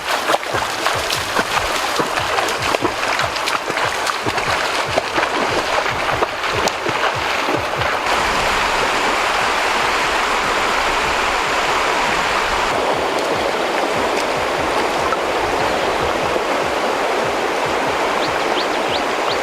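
Water splashing and sloshing in irregular bursts, then from about eight seconds a steady rush of running water.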